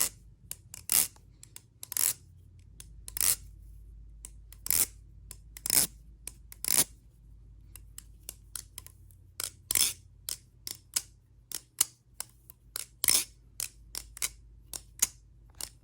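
Maxace Serpent Striker V2 balisong, a bearing-pivot knife with G10 handles and stainless steel liners, being flipped: sharp clicks of the handles and latch knocking as it opens and closes. The clicks come about once a second at first, then in a quicker, denser run in the second half.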